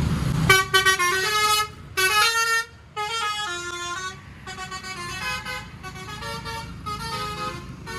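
Bus telolet horn, a multi-tone musical air horn of the 'basuri' kind, playing a quick tune of stepped notes. It starts about half a second in, breaks off briefly around three seconds, then carries on more softly.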